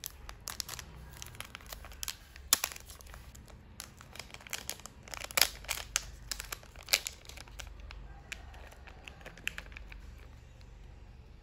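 A small clear plastic packet crinkling and crackling as it is handled and torn open, with several louder sharp snaps among the crackles.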